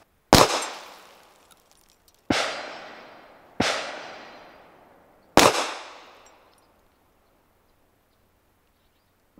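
Four pistol shots from a Sig P320, spaced one to two seconds apart, heard from beside the target downrange, each with a decaying echo. The shots test whether the cracked red dot has held its zero.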